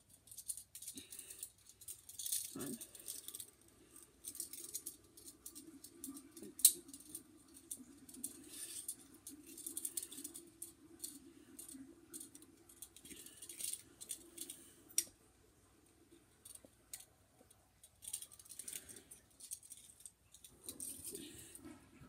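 Toy handcuffs rattling and clicking as they are worked onto a wrist, with a string of small irregular clicks and one sharper click about a third of the way in.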